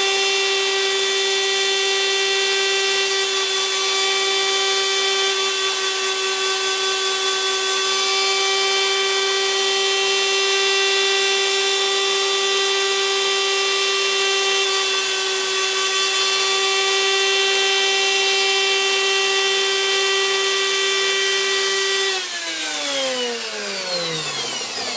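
Homemade lathe tool post grinder running at high speed with a steady, high whine, pretty noisy. About 22 seconds in it is switched off and spins down, its pitch falling away.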